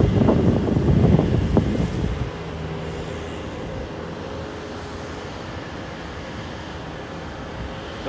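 Bobcat S220 skid steer's diesel engine running as the loader drives off across gravel, with wind buffeting the microphone for the first two seconds. After that the engine's steady hum is heard alone, fainter.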